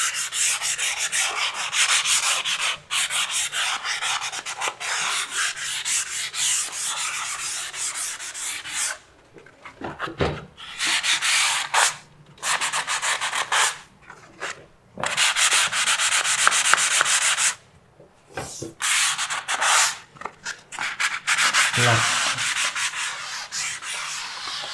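Hand-sanding dried smoothing filler on a wall with a P150-grit foam sanding pad: quick back-and-forth scratching strokes. They run without a break for about the first nine seconds, then come in short runs with brief pauses between them.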